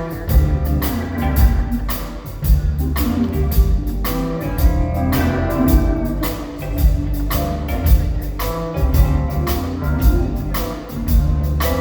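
Band music with a steady drum beat over a heavy bass line and pitched chords.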